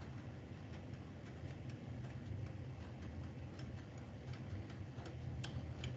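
Faint background room noise: a steady low hum with scattered, irregular faint ticks and clicks.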